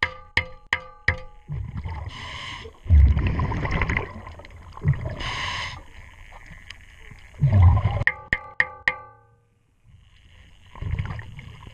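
Background music with an even plucked beat at the start and again near the end. In between, a scuba diver's regulator breathing underwater: two hissing inhalations, each followed by a low rumbling burst of exhaled bubbles.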